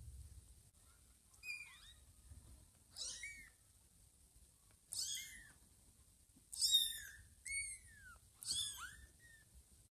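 Two-week-old kittens mewing: about six short, high-pitched mews, several falling in pitch, the loudest about two-thirds of the way through.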